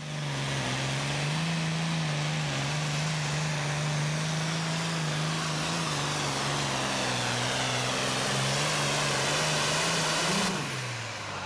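International Harvester 1066 Super Farm pulling tractor's turbocharged diesel engine running flat-out under load as it drags the weight-transfer sled, a loud, steady drone. About ten and a half seconds in, the engine revs up briefly and then winds down.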